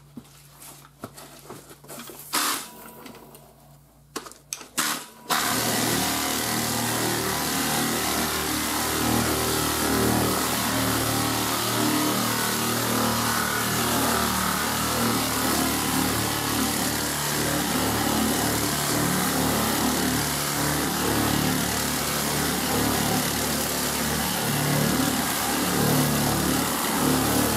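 Pneumatic air file (straight-line sander) with 40-grit paper sanding body filler. After a few clicks and short bursts, it starts running steadily about five seconds in.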